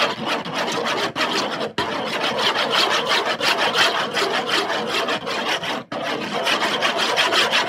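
A mixing tool scraping fast round a plate while stirring glue and activator into slime: a loud, steady run of quick rasping strokes.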